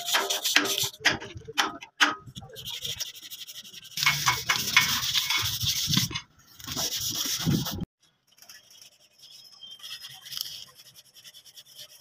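Hand sanding of a truck's steel body panels: quick, irregular scratching strokes of abrasive rubbed over painted metal. It is loud for most of the first eight seconds, then drops suddenly to fainter rubbing.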